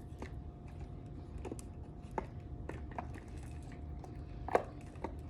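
Small bottles of oils and sprays being handled and set into a box: scattered light clicks and taps, with one sharper knock about four and a half seconds in.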